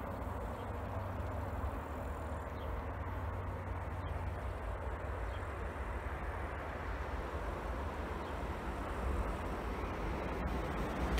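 ÖBB Railjet express train approaching from a distance, a steady low rumble that slowly grows louder toward the end.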